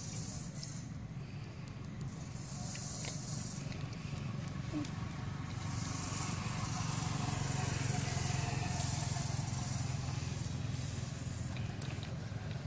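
Low engine rumble of a passing motor vehicle, swelling to its loudest about two-thirds of the way through and then easing off.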